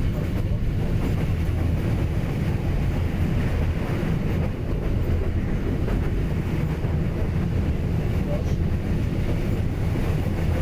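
Train running on the railway line: a steady low rumble.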